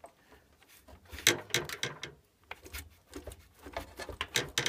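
Irregular clicks, knocks and rattles of metal and plastic parts being worked by hand inside an RV furnace, as the blower motor's retaining clamp is wiggled down past its wiring plug. The sounds start about a second in, and the sharpest knock comes at that point.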